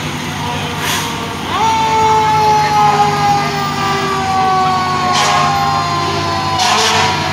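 A fire-apparatus siren sounds about a second and a half in, jumping up quickly and then slowly falling in pitch, over the steady engine rumble of fire trucks passing slowly. Short hissing noises come about a second in and twice near the end.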